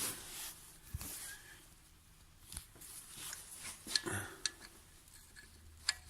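Light metal clicks and scraping as a repair M10 camshaft stud is handled and started by hand into the freshly tapped thread of a VAZ 2114 cylinder head, with a few sharp ticks among them.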